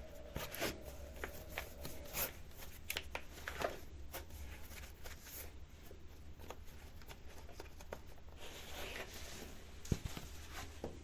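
Sneakers being pulled on: scattered rustles, scuffs and light taps of the shoes' material and laces, with a longer rushing scrape about eight seconds in and a sharper thump shortly after.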